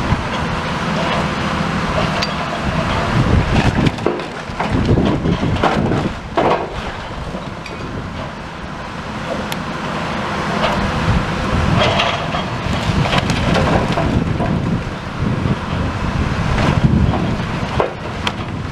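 High-reach demolition excavator breaking down a brick building: its engine rumbles steadily while brick and timber crack, clatter and fall, with several louder crashes along the way.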